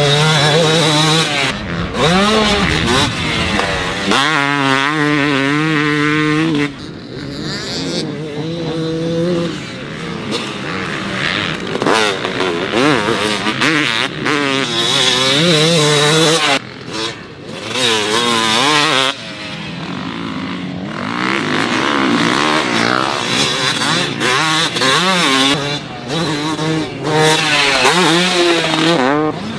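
2005 Yamaha YZ250 single-cylinder two-stroke dirt bike engine being ridden hard, its pitch rising and falling over and over as the throttle is opened and chopped. The sound changes abruptly several times.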